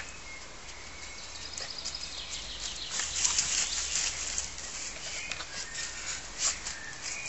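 Branches of a dense conifer shrub rustling and crackling in quick, irregular snaps as a small miniature pinscher pushes about inside it. A bird chirps faintly a few times.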